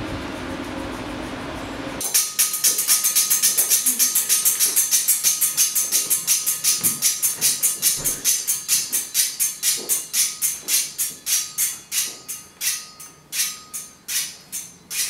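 Motorised metallic garter rattling: a rapid train of bright metallic jingles over a faint steady whine, starting about two seconds in, then slowing and turning irregular toward the end.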